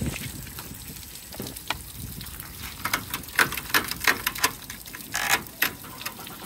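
Water trickling and splashing, with irregular sharp drips and taps that come more often in the second half.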